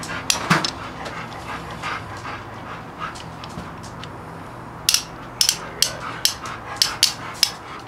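Pliers clicking and tapping against a piston's wrist-pin retaining clip as the piston is fitted to a Harley-Davidson Evolution engine: scattered sharp metallic clicks, coming quickly one after another in the second half, over a steady low hum.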